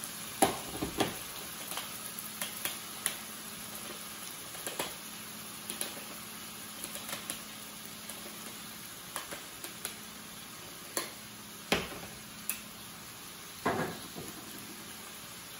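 Handheld manual can opener cutting around a small metal can, giving short, irregular clicks and crunches, with a louder knock near the end. Under it runs the steady sizzle of stew meat browning in an oiled skillet.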